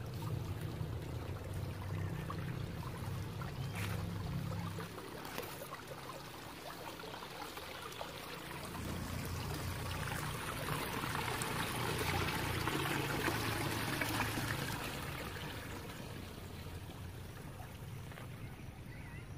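Water running steadily, like a small irrigation stream beside a rice-field path, growing louder about halfway through and easing off near the end, with an uneven low rumble underneath.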